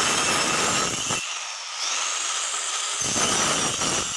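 Handheld electric cutter machine running at full speed as its blade cuts a shallow groove along the edge of a laminated plywood door panel, making the recess for a piano hinge. It gives a steady high whine over a grinding cutting noise.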